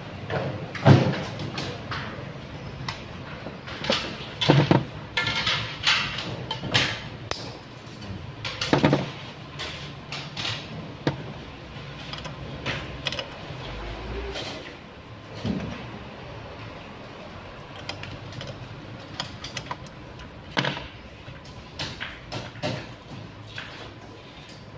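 Irregular metallic clicks, taps and short scrapes of wire being bent by hand around the pins and disc of a wire-bending jig, busiest in the first half.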